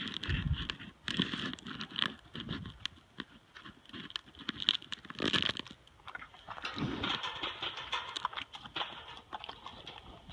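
A horse crunching and chewing hard peppermint candies close up: an irregular run of crisp crunches.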